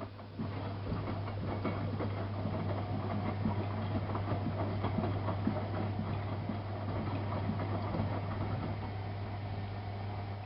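Miele Softtronic W3657 washing machine with its drum turning. There is a steady motor hum over the irregular swish and clatter of wet laundry and water tumbling. The drum starts up about half a second in after a pause, as in the back-and-forth rotation of the wash phase.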